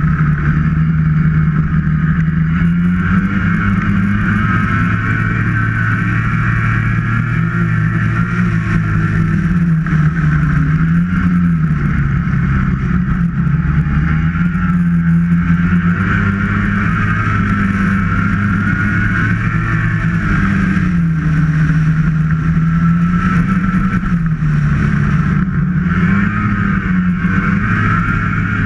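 Snowmobile engine running steadily under way, its pitch dipping and climbing back several times, with a higher whine running above it.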